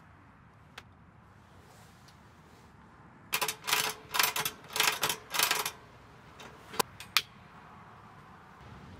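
A laptop lid clicks shut, then five short bursts of rattling clicks and two sharp clicks come from a kerosene heater being made ready and lit.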